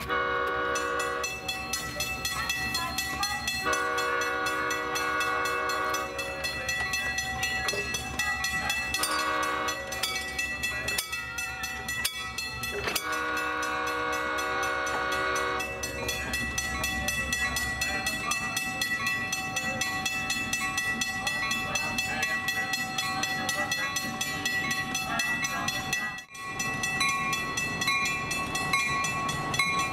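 Diesel locomotive air horn sounding the grade-crossing signal, long, long, short, long, as the train approaches, over the low rumble of the engine. Steady high ringing tones run underneath, and the horn stops about 16 seconds in.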